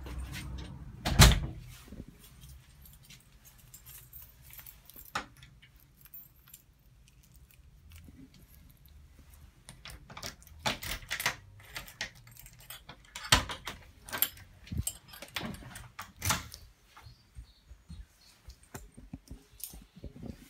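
A bunch of keys jangling, and a key clicking and rattling in a front-door lock as the door is unlocked, in a run of sharp clicks and knocks in the middle part. A single loud knock comes about a second in.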